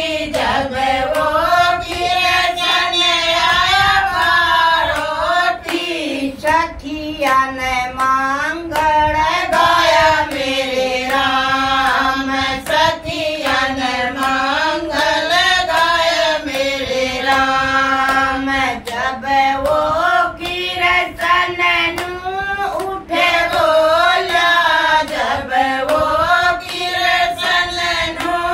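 Group of women singing a bhajan (Hindu devotional song) together without instruments, keeping time with steady rhythmic hand clapping.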